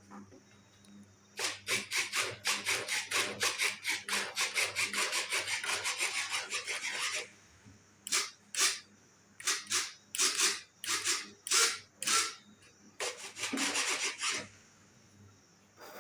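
Quick back-and-forth scraping strokes of hand work on the repair, about seven a second for some six seconds, then shorter runs of separate strokes.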